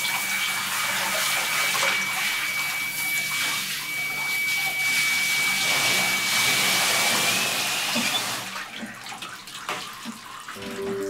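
Handheld bathtub shower spraying water over a German Shepherd's coat to rinse out the soap: a steady rush of water with a thin, steady high whistle, shut off about eight seconds in and followed by quieter drips and splashes.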